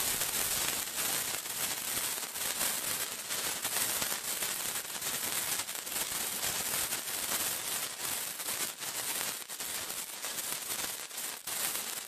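A lit sparkler burning with a steady, hissing fizz full of fine, rapid crackles.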